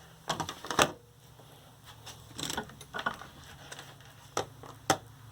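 Scattered light clicks and taps from handling an 18650-cell lithium-ion scooter battery pack: a quick cluster in the first second, then single sharper clicks about four and a half and five seconds in.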